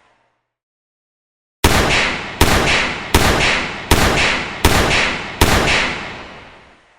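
Six shots fired in quick succession, about one every three quarters of a second, each with a long echoing tail.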